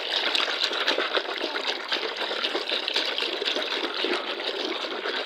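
Water splashing steadily in a plastic basin as a hand swirls it, working shower gel into a foamy soak.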